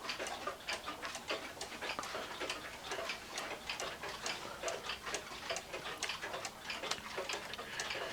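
Small one-day (30-hour) cuckoo clock ticking: quick, even ticks of its pendulum escapement.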